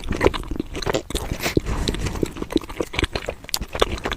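Close-miked mouth sounds of someone chewing a mouthful of Kayseri yağlama: a quick, irregular run of small clicks and smacks.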